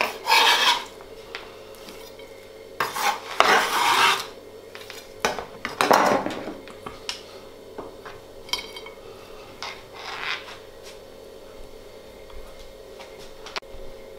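A chef's knife scraping sliced onion across a plastic cutting board and onto a plate, in three scraping strokes during the first six seconds, followed by a few light clicks and taps.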